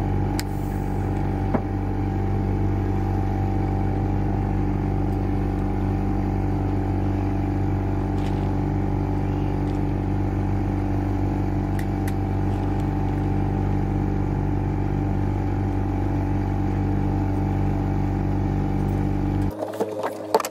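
Boat engine running steadily under way, a constant even drone that cuts off suddenly near the end.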